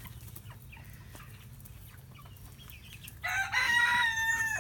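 Backyard chickens clucking quietly, then about three seconds in a rooster crows: one loud, long, held note that rises slightly at the start.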